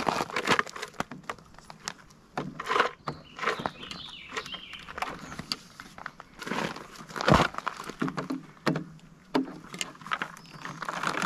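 Heavy power-station cables and plugs being handled and pushed into the side ports of two EcoFlow Delta Pro units: scattered clicks, knocks and rustles, with one sharper knock about seven seconds in.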